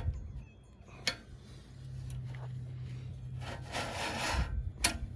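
Chainsaw chain being worked along its bar by hand, with metal links rasping and clicking against the bar. There are a few sharp clicks and a longer rasping stretch near the end.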